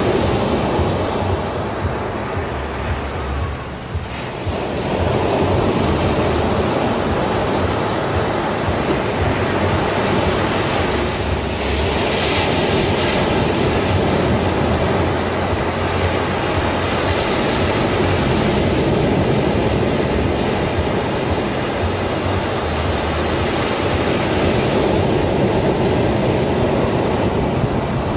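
Sea surf washing in and out on a sandy beach, a steady wash of noise that swells and ebbs, with a short lull about four seconds in.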